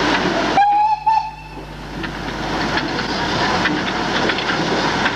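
Steam locomotive whistle sounding briefly, a little over half a second in, followed by the steady noise of the locomotive moving along the track.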